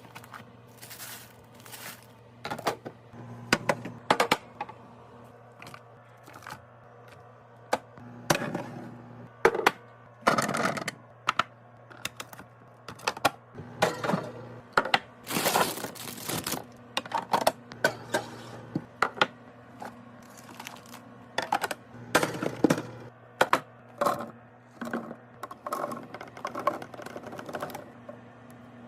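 Irregular clacks, taps and knocks of packaged food and drinks being handled and set into place while restocking a fridge, with short rustles of packaging, over a steady low hum.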